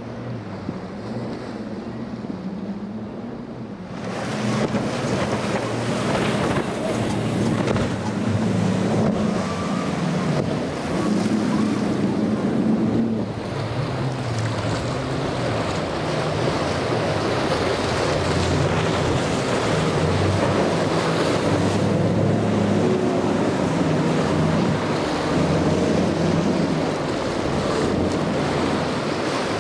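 Twin 300 hp outboard engines running hard through rough inlet waves, with rushing water and spray over wind noise on the microphone. First a Yellowfin's twin Mercury 300s, then from about four seconds in, when the sound jumps louder, a Pursuit's twin Yamaha 300s.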